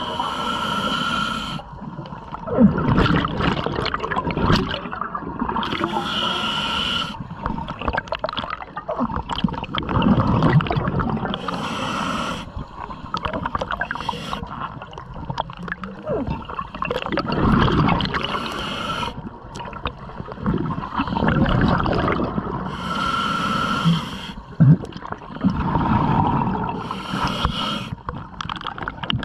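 Scuba diver breathing through a regulator underwater: six hissing inhalations, about one every five seconds, each followed by the bubbling rumble of an exhalation.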